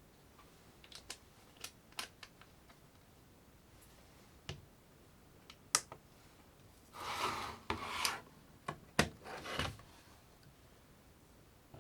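Scattered sharp clicks, then a few short scraping rubs about two-thirds of the way through, like small hard objects being handled.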